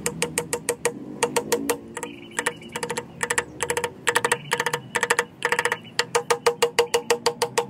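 Small hammer tapping a thin wooden wedge down into the slot of an axe handle seated in the axe head's eye. The taps come in quick runs, up to about seven a second, with short pauses between runs, each tap with a brief ring.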